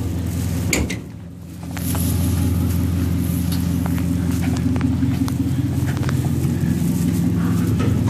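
Steady low motor hum that dips briefly about a second in, with a few faint clicks over it.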